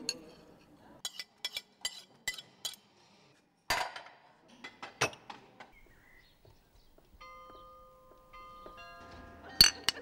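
Knife and fork clinking and scraping on a china plate in a quick run of clicks, followed by two louder knocks about a second apart. Later, steady ringing tones build up in layers, and near the end glass bottles clink together sharply; this clink is the loudest sound.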